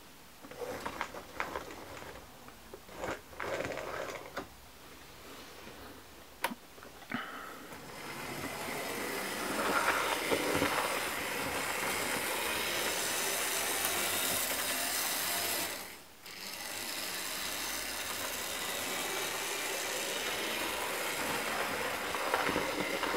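HO-scale model locomotive running: a steady whir of its small electric motor and gears with wheels on rail, starting about eight seconds in after a few light clicks, and dropping away briefly about halfway through the run.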